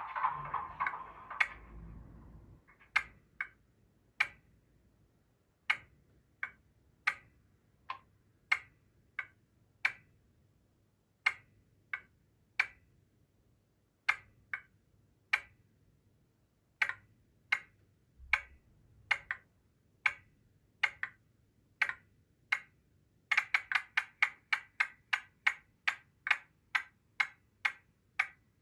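Class 07 shunter DCC sound file played through the model's small speaker: the engine sound dies away over the first couple of seconds, then the Spirax valves tick as sharp single clicks at uneven spacing, about one a second, speeding up into a quick run of clicks about 23 seconds in.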